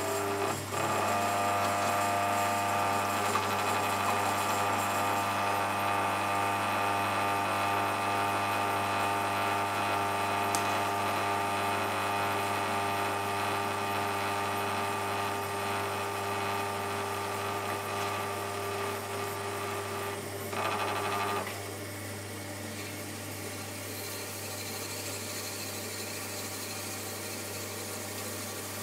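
Shimpo RK10 potter's wheel running, its electric motor giving a steady whine of several tones over a low hum. The whine cuts off suddenly about 21 seconds in, leaving only the steady low hum of the motor.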